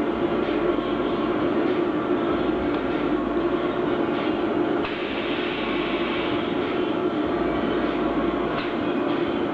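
Steady machine noise with a low hum from a high-frequency fabric welding machine at work, holding level with only a slight dip about five seconds in.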